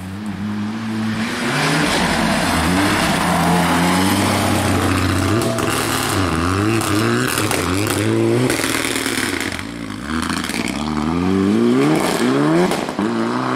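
Renault Clio rally car's engine revving hard, its pitch rising and falling over and over as the driver works the throttle through the gears. The car runs wide onto the snowy verge at the hairpin and then pulls away.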